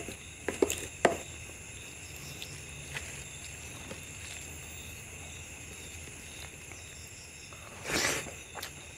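Fingers mixing rice and mutton curry on a plate, with a few light clicks in the first second or so, then a short louder burst of noise near the end as a handful goes into the mouth. A steady faint high drone runs underneath.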